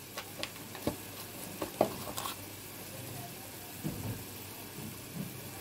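Onion-tomato masala frying in ghee in a steel kadhai, sizzling steadily, with a few sharp clicks and soft knocks from a spoon and wooden spatula against the pan as it is stirred and spices are added.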